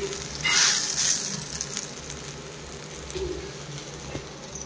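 Vegetable chowmein sizzling in a hot wok as a spatula stirs it. A louder burst of frying and stirring comes about half a second to a second and a half in, then it settles to a quieter, steady sizzle.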